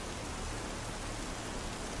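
Steady rainfall, an even hiss of rain on a surface with no single drops standing out.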